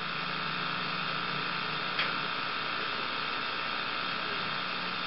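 Steady electrical hum and hiss with nothing else going on, and one faint click about two seconds in.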